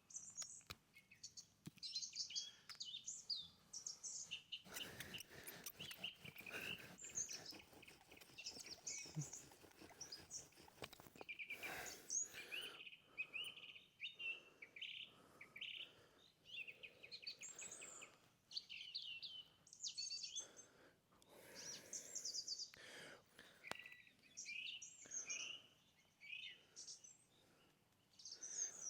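Several birds chirping and trilling with many short, high calls, over intermittent brief bursts of rustling noise.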